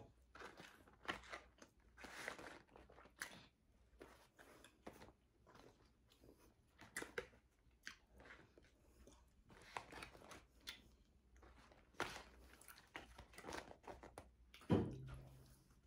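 Close-miked chewing of a breakfast slider: faint, irregular mouth smacks and small crunches. One louder mouth sound comes near the end.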